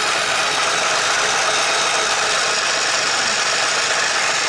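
Small battery-powered motor of a plastic sewing machine running at very high speed, driving its needle mechanism with a steady, even whir.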